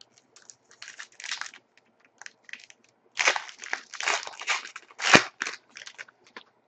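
Crinkling and tearing of a trading card pack's wrapper as it is torn open by hand: a run of short crackles, growing busier and louder about three seconds in, with the sharpest rip a little after five seconds.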